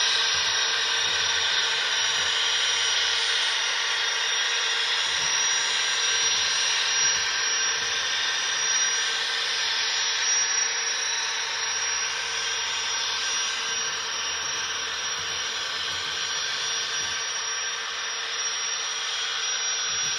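Onboard sound decoder of an HO-scale Union Pacific gas turbine locomotive set playing its steady turbine running sound through the model's small speaker: a hissing rush with a constant hum underneath, fading slightly near the end as the train moves away.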